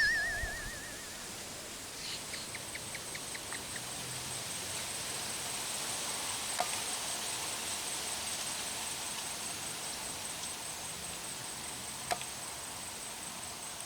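Insects chirring in a steady, high, even drone. A short run of quick clicks comes about two seconds in, and two single sharp ticks come later.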